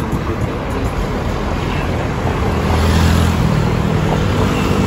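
Road traffic passing on a wide city road: steady tyre and engine noise, with a vehicle's engine hum growing louder from about halfway through.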